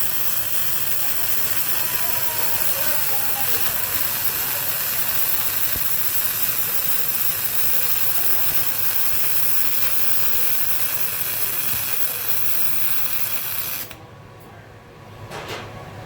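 MIG welding arc laying a bead on a small plate, a steady hissing crackle that cuts off suddenly near the end as the arc stops.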